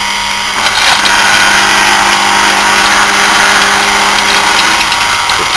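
Electric motor of a Davey PowerChief PC105 pump running unloaded, with its impeller and pump housing removed, giving a steady hum and whir. It runs fine, with a bit of vibration.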